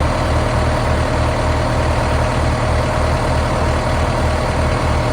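Allis Chalmers 8070 tractor's diesel engine idling steadily, with a low, even pulsing rumble.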